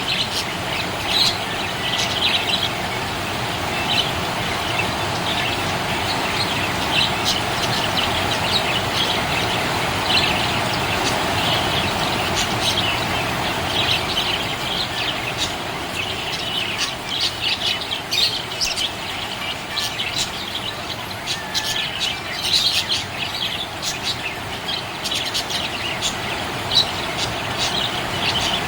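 Budgerigar chirping: a running series of short, quick chirps over a steady background hiss.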